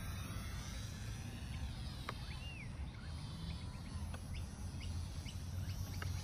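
A steady low rumble on the microphone. Over it comes the faint whine of a Volantex Trainstar Mini RC plane's electric motor, falling in pitch in the first couple of seconds, with scattered bird chirps and calls.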